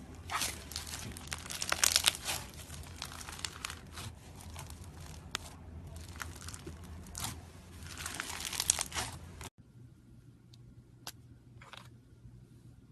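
Slime being squeezed and worked by hand, a dense run of crackling clicks and pops. It cuts off suddenly about nine and a half seconds in, leaving only a few faint clicks.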